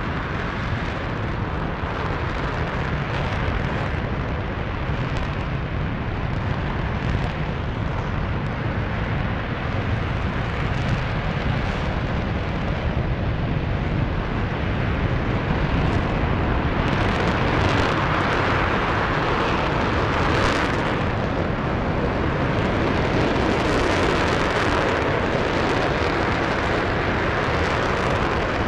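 RS-25 liquid-hydrogen/liquid-oxygen rocket engine firing in a static hot-fire test: a continuous, steady rumble and hiss.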